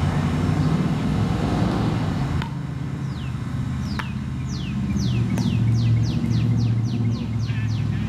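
Low steady hum of vehicle engines in nearby traffic, with a songbird singing a run of short downward-sliding whistled notes that quicken to about three or four a second in the second half. The siren itself is silent.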